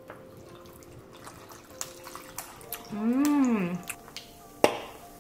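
Cutlery clicking lightly on a plate while eating, with a closed-mouth hummed "mmm" about three seconds in that rises and falls in pitch. A sharp clink of fork on plate near the end is the loudest sound.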